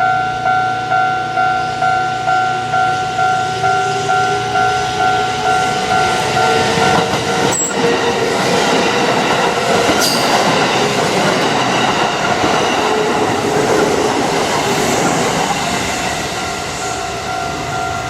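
A Kintetsu Osaka Line train passing over a level crossing, wheels clattering on the rails, with a couple of sharp clacks. Before the train arrives the crossing's electronic warning bell rings about one and a half times a second; from about six seconds in the train's noise drowns it out.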